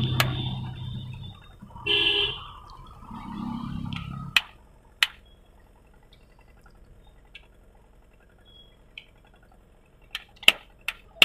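Light knocks of a screwdriver on a Mi power bank's casing, tapping the battery and circuit board out of the shell: two sharp taps about four seconds in, then a quick run of three or four near the end. A short tonal honk sounds about two seconds in.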